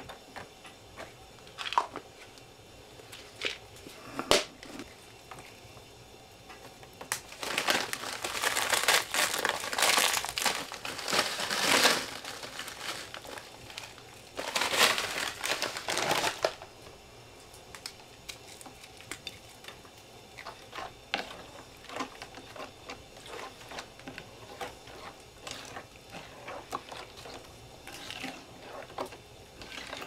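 Clear plastic bag being handled, crinkling in two long stretches about a quarter and half of the way in, with scattered small clicks and taps before and after.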